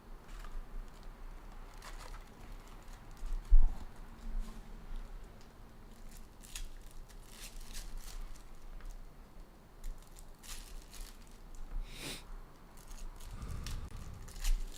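Hockey trading card packs and cards being handled: wrappers crinkling and tearing, cards sliding and shuffling, with scattered light clicks. A thump about three and a half seconds in is the loudest sound.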